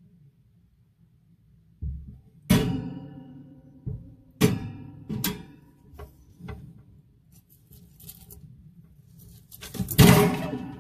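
Music: a series of struck notes that ring out and fade, the loudest about ten seconds in.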